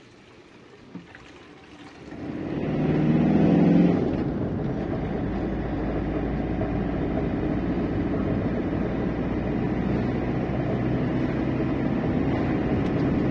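Motorhome engine and road noise while driving: fairly quiet at first, then about two seconds in the engine gets loud with a pitched note, and after that it runs steadily along the road.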